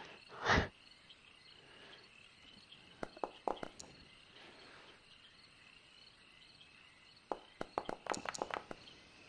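Clattering dice-roll sound effects from a virtual tabletop: a short run of clicks about three seconds in and a longer run from about seven to nine seconds. Under them, insects chirp faintly and steadily.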